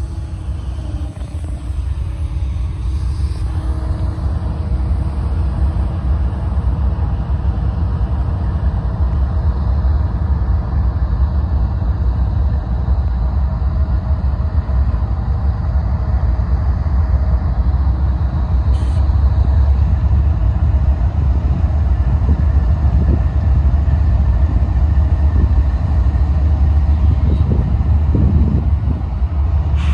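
Diesel-electric freight locomotives, a CSX unit followed by a Kansas City Southern GE ES44AC, rumbling steadily past at slow speed. The sound is a heavy, low engine and rail rumble that grows a little louder in the second half.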